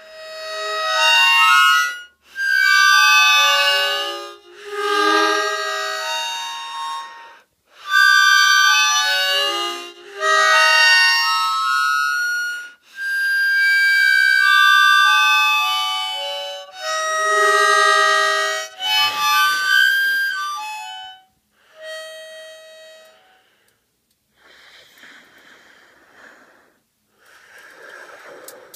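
Harmonica playing a sequence of sustained chords in short phrases of a second or two, with brief breaks between them. After about 21 s the notes thin out and fade into faint, breathy sounds without clear pitch.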